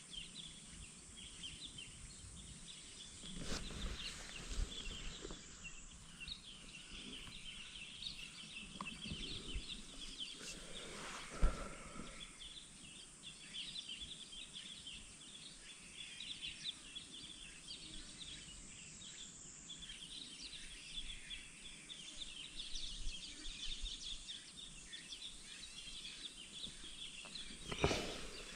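Outdoor ambience of dense, high-pitched bird chirping that keeps up throughout, with a few short knocks and rustles.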